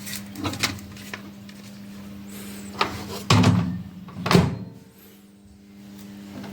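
A door clicking and thudding: a few light clicks, then two heavy thumps about a second apart, over a steady low hum.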